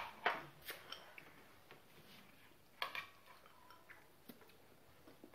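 Teaspoon clinking and scraping against a glass dessert bowl: a few light, scattered clicks.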